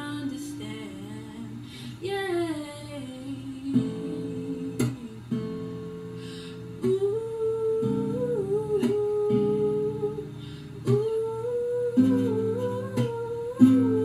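Acoustic guitar playing chords, with a woman humming a wordless melody over it.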